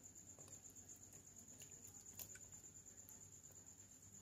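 Near silence: room tone with a faint steady high-pitched whine and a few faint clicks, one about two seconds in.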